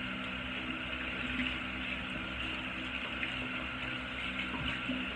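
Water running steadily from a bathroom tap while a skin scrub is washed off, with a low steady hum underneath.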